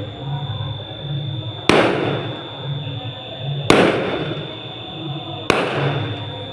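Fireworks going off: three loud bangs about two seconds apart, each followed by a fading echo.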